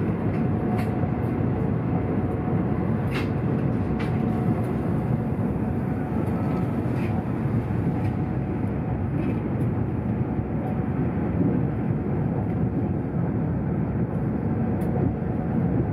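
Steady rumble of a RENFE AVE high-speed train running at about 180 mph, heard from inside the passenger cabin, with a faint steady tone and a few light clicks.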